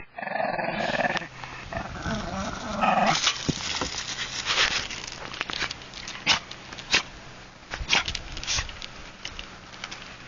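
Shih Tzu growling while it plays, then sneezing sharply about six to seven seconds in.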